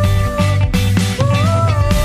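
Background music with a steady beat and a held melody line that slides up in pitch about a second in and then settles.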